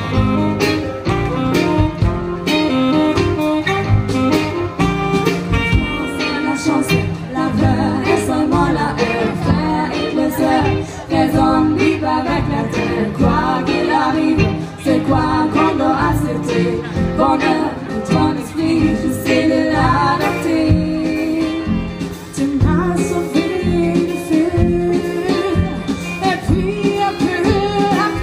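Live band playing a song through the stage sound system, with a lead singer over guitar, keyboard and drums, heard from the crowd in front of an open-air stage.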